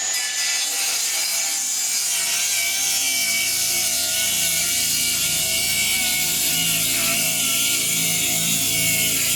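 Bosch GKS 18V-68 GC cordless brushless circular saw cutting through wood in one long, steady cut, its motor note wavering slightly under load.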